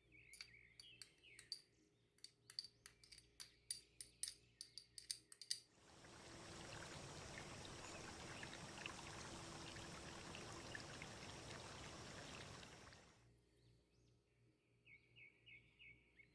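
A quick run of sharp kitchen clinks, then about seven seconds of steady rushing noise like liquid pouring, which stops suddenly. Birds chirp faintly at the start and near the end.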